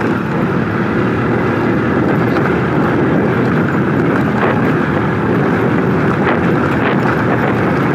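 Motorcycle riding over a rough dirt track: a steady rush of engine, tyre and wind noise on the microphone, with a few faint knocks from the bumps.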